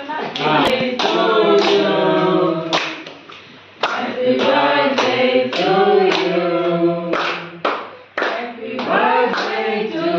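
A group of people singing together, clapping their hands in time, with a short break in the singing about three seconds in.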